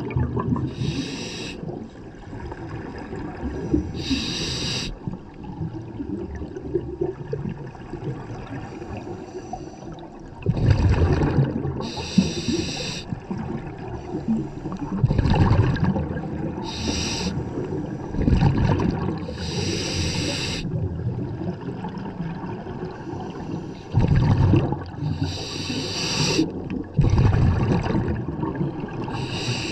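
Scuba diver breathing through a regulator underwater: a hissing inhale alternating with a rumbling rush of exhaled bubbles, one breath every four or five seconds.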